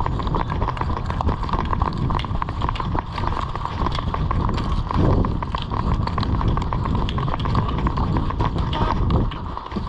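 A person running over ground, with quick irregular footfall thuds and clicks over a heavy rumble of wind and movement on a body-worn action camera's microphone.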